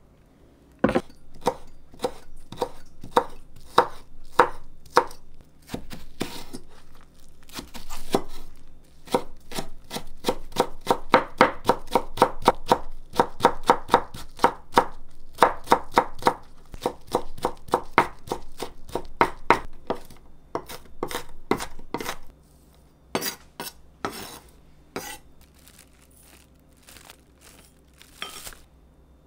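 Kitchen knife chopping green onions on a wooden cutting board: quick, regular knocks of the blade on the board, several a second, fastest in the middle stretch. The chopping stops a little past two-thirds of the way through, leaving only a few scattered knocks.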